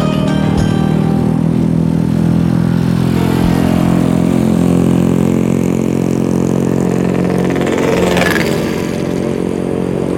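A motor scooter's engine runs steadily as it rides along at a cruising pace, with a brief whoosh about eight seconds in.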